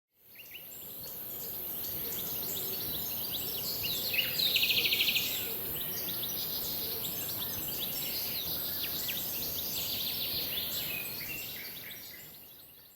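Many birds chirping and calling over a steady high hiss, fading in at the start and out near the end. A fast trill about four seconds in is the loudest call.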